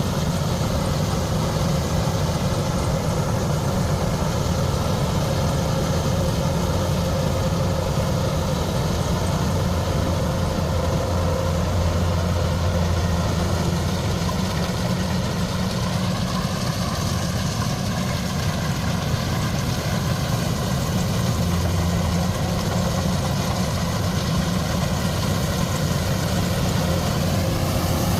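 Large diesel engine of heavy farm machinery running steadily, with a slight rise in engine pitch about halfway through and again near the end.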